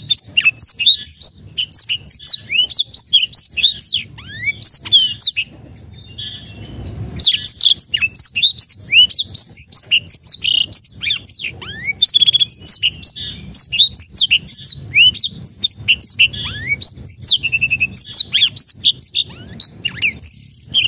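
Caged black-throated canary (blackthroat) singing a fast, continuous run of short whistled notes that sweep up and down in pitch, broken by a pause of about two seconds some five seconds in.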